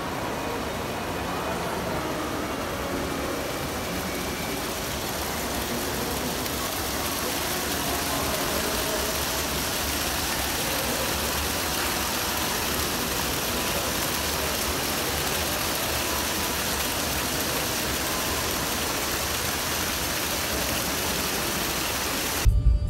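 Fountain water jets splashing into a pool: a steady rush of falling water. Near the end a sudden low rumble takes over.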